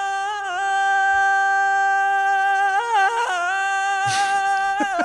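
A man's voice singing a wordless Middle Eastern-style vocal line, pitch-corrected in Melodyne. It holds long, very steady notes with small ornamental turns, steps up briefly about three seconds in, and takes a short breath about four seconds in. The correction leaves the raw take still sounding rough to the singer.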